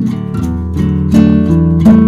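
Background music: strummed acoustic guitar chords changing at a steady pace.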